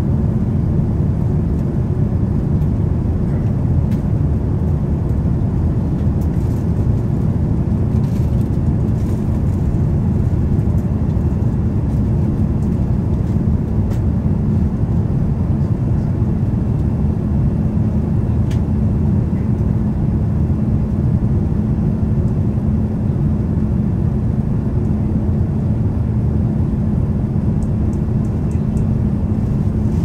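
Steady low rushing noise of airflow and engines inside the cabin of a Boeing 787-9 airliner descending on approach with flaps extended, with an even hum running under it.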